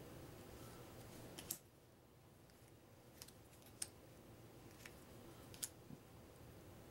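Thin cardboard game tokens being set down and slid on a wooden tabletop by hand: about half a dozen light taps and clicks, spaced irregularly, the first about one and a half seconds in.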